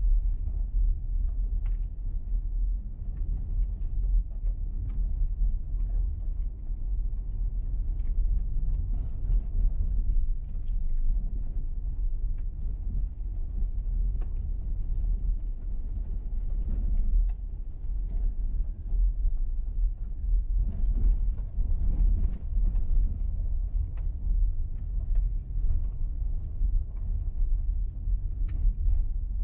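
Car driving on an unsealed red dirt and gravel road: a steady low rumble of tyres and running gear, with occasional faint clicks.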